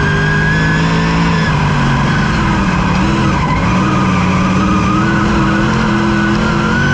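Speedway race car's engine under racing load, heard from inside the cockpit: loud and steady, its note changing pitch about a second and a half in and again near the end.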